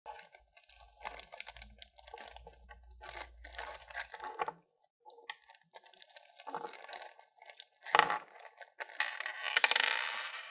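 Clear plastic bag crinkling and rustling in irregular bursts as hands handle it and take a plastic cable-socket connector out of it, with a sharp crackle about eight seconds in and the densest rustling near the end.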